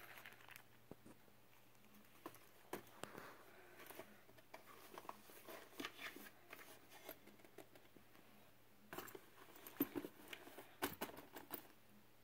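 Faint handling noise: soft clicks, taps and rustles of zippered cosmetic pouches being picked up and laid into a drawer, with a cluster of louder knocks near the end.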